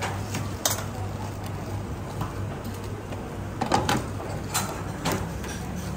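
Metal tongs and utensils clinking against stainless steel pots and bowls: a few sharp clinks, spread out, over a steady low kitchen hum.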